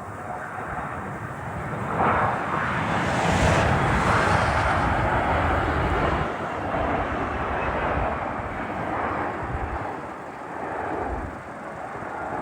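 Boeing 727-200 freighter's jet engines roaring past as it comes in to land: a rushing noise that swells sharply about two seconds in, is loudest for the next few seconds with a brief high hiss, then slowly fades.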